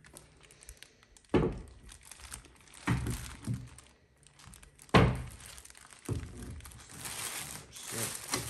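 A heavy, plastic-wrapped ALX ported twin engine knocking down onto a glass-topped table three times, the third knock the loudest. From about six seconds in, its plastic bag crinkles and rustles as it is pulled open.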